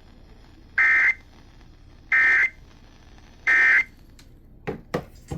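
Emergency Alert System end-of-message data bursts over FM radio: three short, loud two-tone digital screeches about 1.3 s apart, the coded signal that closes an EAS broadcast. A few sharp clicks follow near the end.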